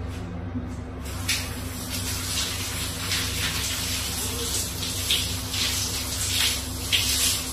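Shower water running and splashing in a tiled shower stall, starting about a second in and surging unevenly.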